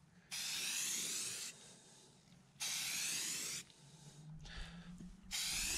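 Aerosol spray paint can (Rust-Oleum gloss) hissing in three separate passes of about a second each, with short pauses between.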